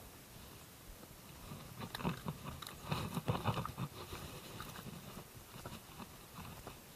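Close handling noise from an angler moving on a dry, straw-covered bank: scattered rustles, clicks and crunches, busiest about two to four seconds in.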